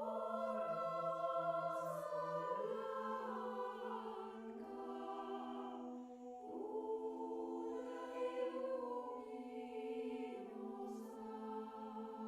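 Mixed-voice youth a cappella choir (sopranos, mezzo-sopranos, tenors and baritones) singing softly in slow, sustained chords, the harmony moving to a new chord every few seconds.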